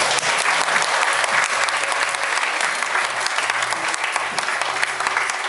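Audience clapping steadily, with the bass notes of the performance music continuing faintly underneath.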